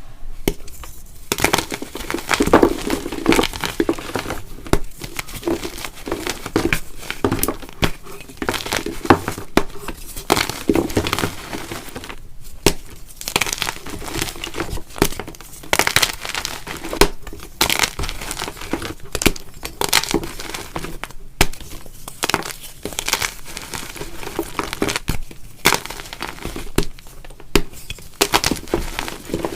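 Blocks of gym chalk being crushed and crumbled by hand, a dense run of irregular crunching and crackling.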